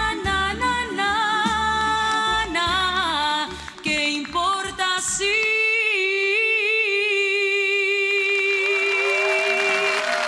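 A singer performing a Spanish-language song over backing music. About halfway the beat drops out and the singer holds one long final note with vibrato, and applause breaks in as the note ends.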